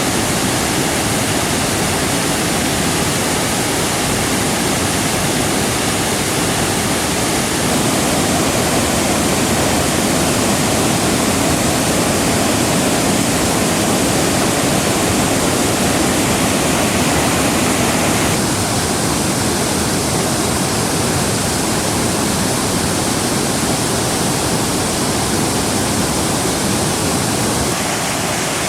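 Large waterfall cascading down several tiers of rock: a steady, loud rush of falling water.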